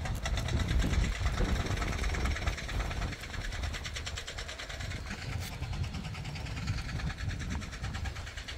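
Wind rumbling on the microphone, with a fast, faint, even ticking higher up.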